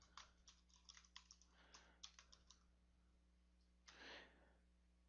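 Faint computer keyboard typing: a quick run of key clicks for about two and a half seconds as a short phrase is typed. A short, soft noise follows about four seconds in.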